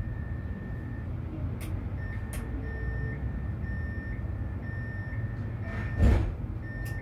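Tram running with a steady low rumble, and a beeping signal repeating about once a second from about two seconds in. A loud thump comes near the end.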